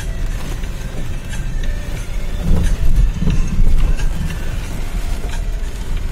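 Car driving on a rain-wet street, heard from inside the cabin: a steady low rumble of engine and tyres that swells louder a few times around the middle.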